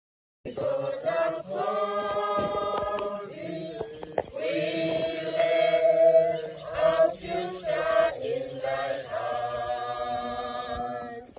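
A large group of voices singing together in unison, with long held notes, starting about half a second in.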